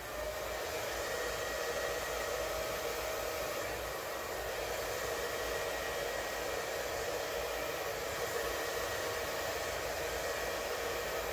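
Hand-held electric air blower running steadily, blowing wet acrylic paint outward across a canvas in a Dutch pour: an even rush of air with a constant motor whine.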